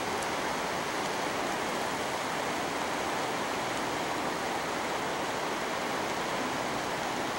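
A steady, even rushing noise with no distinct events, unchanging in level throughout.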